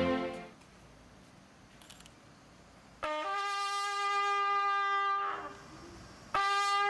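Bugle sounding a memorial call: a long held note starting about three seconds in, then a second note beginning near the end.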